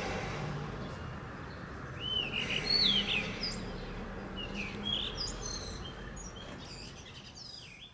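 Birds chirping: a string of short whistled calls that glide up and down, starting about two seconds in, over a low steady hum.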